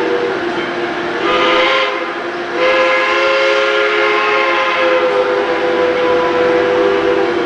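Steam locomotive's chime whistle blowing several blasts. A short blast ends just after the start, a second comes about a second in, and a long steady blast of about five seconds lasts until near the end.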